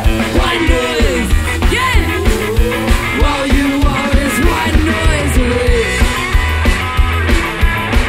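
Ska-punk band playing live: electric guitars, bass and drum kit with a steady driving beat, and a melody line sliding over it.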